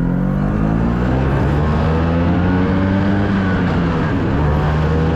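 Vespa P200E's 200cc two-stroke single-cylinder engine pulling the scooter along while riding, its pitch dipping and then rising and falling as the throttle changes.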